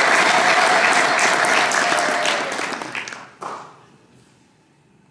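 Audience applauding in a hall. The clapping thins out and stops about three and a half seconds in.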